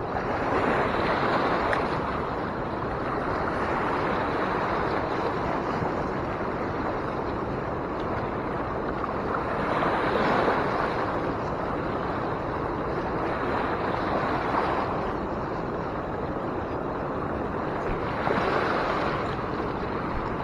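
Steady rushing of a fast-flowing river current, swelling briefly about a second in, around the middle and again near the end.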